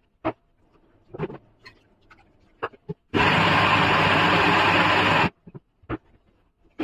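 Kenstar electric mixer grinder running for about two seconds, switching on and off abruptly, grinding soaked wheat into a wet paste. Before it come a few short knocks of the steel jar being handled.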